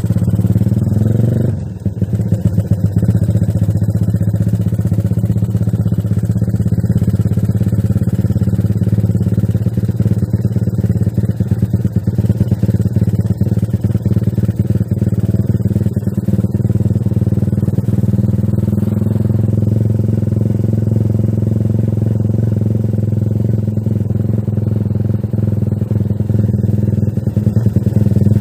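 Tuned Yamaha LC135 V1 ('spec 62' build) single-cylinder four-stroke engine and exhaust running while the bike is ridden slowly. About a second and a half in, the revs fall away briefly, then it settles into a steady low cruise.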